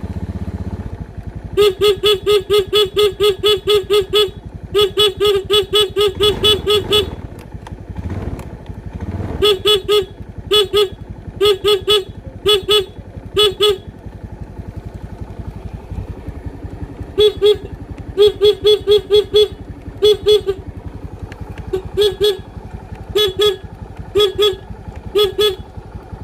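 Motorcycle horn wired through a turn-signal flasher, sounding in rapid pulsed beeps: two long runs of about four beeps a second, then shorter bursts of two to five beeps. A motorcycle engine runs underneath.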